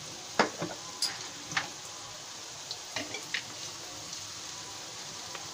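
Chopped onions with cloves and cinnamon frying in hot oil in a pan: a steady soft sizzle, with a few sharp pops and clicks in the first three and a half seconds.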